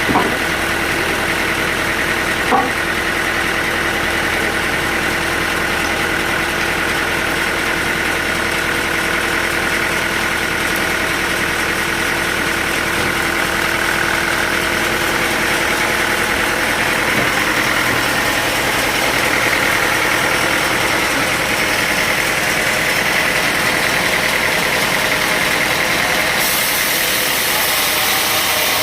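Sawmill machinery running steadily with an engine-like hum, with two sharp knocks in the first few seconds; one of its steady tones drops out about halfway through.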